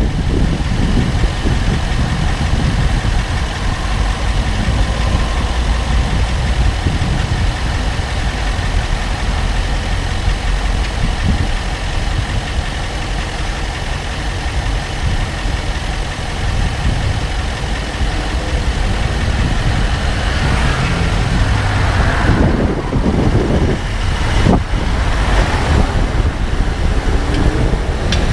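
Range Rover Sport SDV8's 4.4-litre V8 diesel running steadily at low speed, with a couple of sharp knocks late on. The owner cannot tell what is making the clicking this car has at low speeds.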